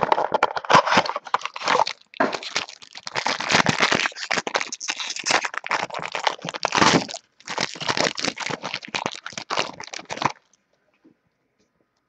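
Plastic wrapping on a trading-card pack being torn open and crumpled, crinkling and crackling in quick bursts with two short pauses, stopping about ten seconds in.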